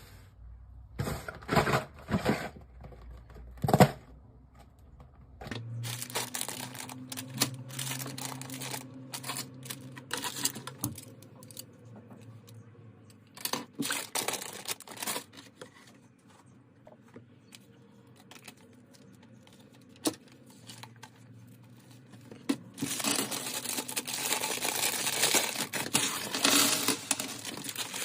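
Plastic crinkling and tearing, with scattered sharp clicks. The crinkling grows dense and loudest near the end.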